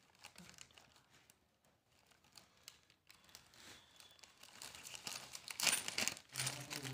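Thin plastic packet of small hardware crinkling and tearing as it is pulled open by hand, with faint scattered crackles at first that grow louder and denser over the last two seconds.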